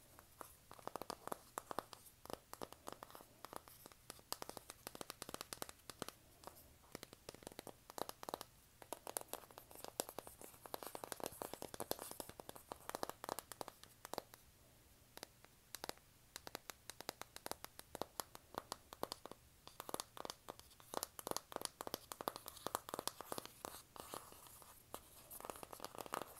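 Long fingernails tapping and scratching on the cardboard box of a BH Cosmetics makeup palette: quick runs of sharp clicks with short pauses between them.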